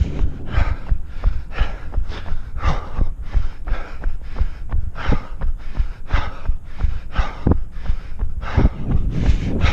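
A runner's footfalls and hard breathing in a steady rhythm, about two strokes a second, with a low rumble of wind and movement on a body-worn microphone.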